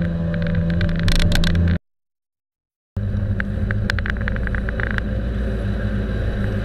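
Suzuki Hayabusa inline-four engine heard close from the tank: running at steady revs, then cut off by a second of total silence about two seconds in. After the gap it idles steadily, with a short run of light ticks.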